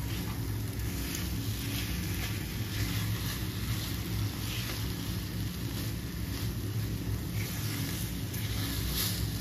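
A silicone spatula pressing and folding thick chana dal halwa in a nonstick pan, giving soft scrapes every second or so over a steady low hum.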